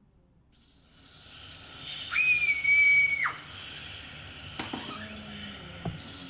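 Layered BandLab Scary Sounds Pad sound effects playing back: a breathy hiss swells in after about half a second, and about two seconds in a whistle-like tone slides up, holds for about a second and drops away.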